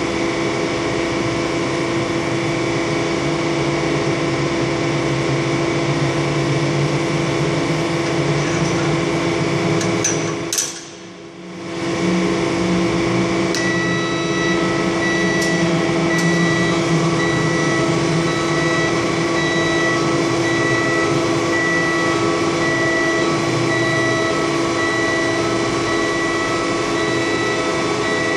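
Articulating boom lift humming with several steady held tones as its work platform rises, with a repeating high beep starting about halfway through. The sound drops away briefly a little before halfway.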